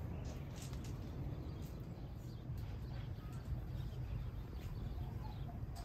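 Rural garden ambience: a steady low rumble with faint, scattered bird chirps.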